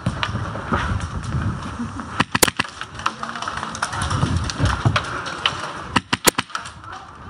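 Airsoft gunfire: sharp snapping shots in two short strings, the first about two seconds in and the second about six seconds in, over a low rumble of movement.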